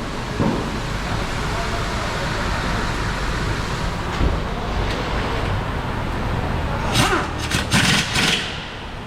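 Workshop background noise with indistinct voices, then a cluster of several short, loud hissing bursts about seven seconds in, lasting around a second and a half.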